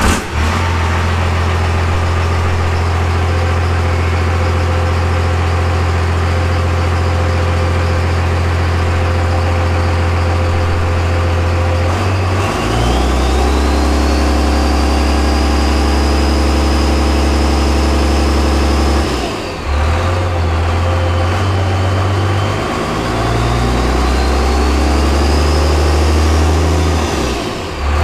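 Cummins diesel engine running just after start-up, steady at first. About twelve seconds in the engine note changes and gets a little louder, with a high whine that climbs, dips briefly and climbs again near the end.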